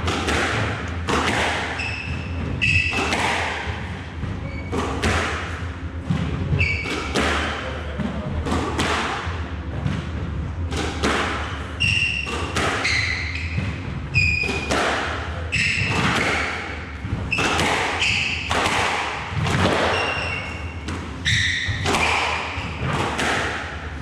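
Squash rally: the ball is struck by rackets and smacks off the court walls and wooden floor, a sharp impact about every second, with shoes squeaking briefly on the floorboards between shots.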